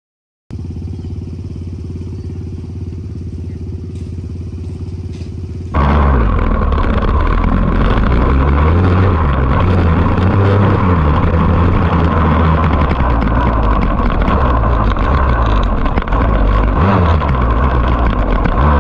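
Dirt bike engine under way on a rough trail, its revs rising and falling, loud. It cuts in suddenly about six seconds in, after a quieter, steady low drone.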